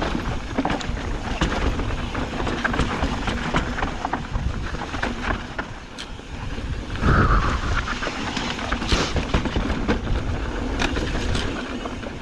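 Mountain bike rolling down a dirt trail: wind buffeting the microphone, with tyre noise and rattling clicks from the bike throughout, and one louder burst about seven seconds in.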